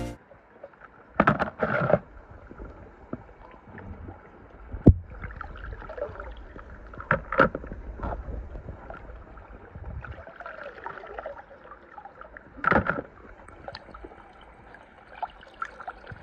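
Swimming-pool water sloshing and splashing as a pool skimmer net is moved through it, with a few sharper splashes now and then.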